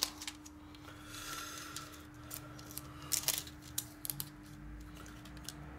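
Scattered light clicks and taps of small tools and parts being handled on a phone-repair workbench, a few sharper clicks a little past halfway, over a steady low hum.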